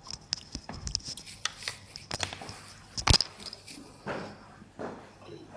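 Slipper strikes: a run of irregular slaps and knocks, the loudest about three seconds in.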